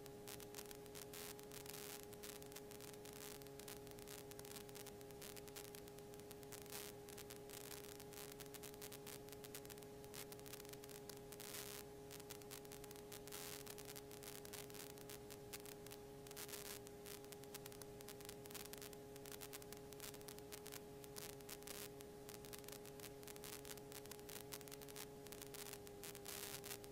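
Faint steady electrical hum with crackling static hiss, in the aircraft's intercom and radio audio feed during flight.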